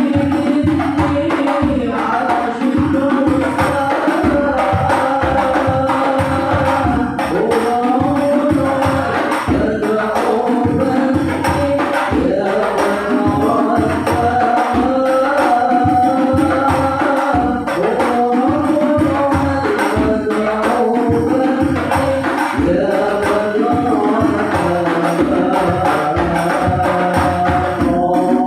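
Sholawat (Islamic devotional song) sung to a steady pattern of hand-drum and jingle percussion, the vocal melody rising and falling over the beat.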